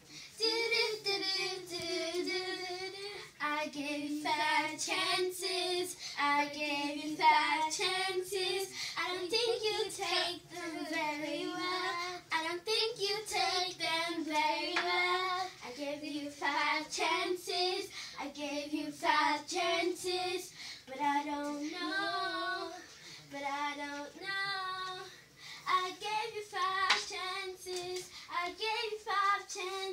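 A young girl singing unaccompanied, one voice carrying a winding, wavering melody in phrases of a few seconds with short breaks between them.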